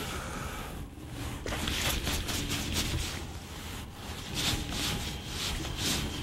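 Wind buffeting the microphone on an open boat, gusting unevenly over a steady low rumble.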